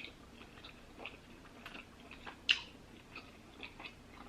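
Close-up chewing of buttered lobster tail meat: soft wet mouth clicks and smacks, with one sharper click about two and a half seconds in.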